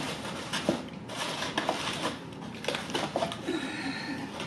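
Cardboard takeout chicken box being handled and closed up, with scraping, rustling cardboard and several light knocks scattered through.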